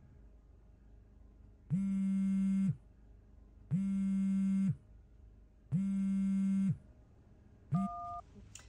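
Phone ring tone: three buzzy one-second rings about two seconds apart, then a short click and a brief two-note beep as the call connects.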